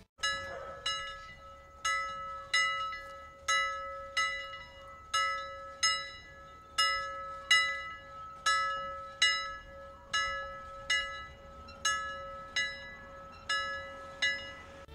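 Notre-Dame de Paris cathedral bells ringing: a steady run of bell strokes, about one and a half a second, each ringing on over a continuous hum.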